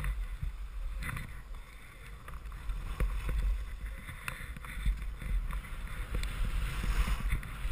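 Skis sliding and scraping over packed, chopped-up snow during a downhill run, with wind buffeting the camera microphone as a steady low rumble.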